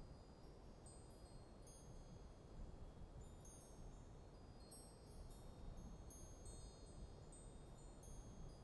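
Wind chimes ringing faintly in a light breeze: scattered high notes struck at irregular moments, several at a time, each ringing on, over a low steady rush of wind.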